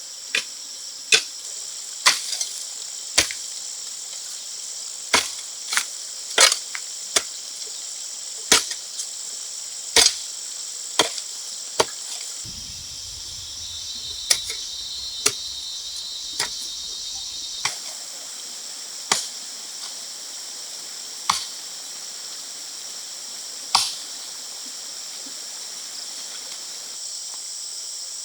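Steady high chirring of rainforest insects, with sharp knocks at irregular intervals. The knocks come about once a second at first and thin out after the middle.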